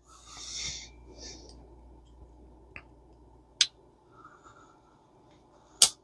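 A screwdriver working on tight screws in a metal fishing reel: a soft hiss at the start, then three sharp metallic clicks spread over a few seconds, the last the loudest.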